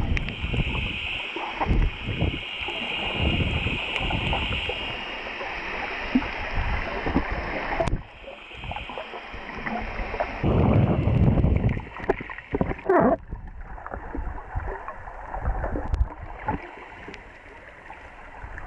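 Muffled water noise with the camera under the sea surface: sloshing and gurgling with low thumps. A steady high-pitched band runs through the first part and cuts off abruptly about eight seconds in.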